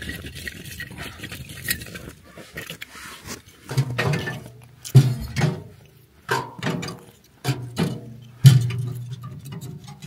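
Thin wooden kindling sticks being laid into the steel firebox of a small portable wood stove, clattering against each other and knocking on the metal. About half a dozen sharp knocks come in the second half, each with a short ring.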